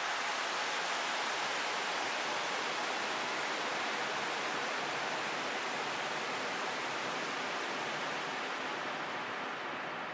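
Steady wash of hiss-like noise, an electronic noise texture of a space ambient track, swelling up over the first second and then holding even, with no melody or beat.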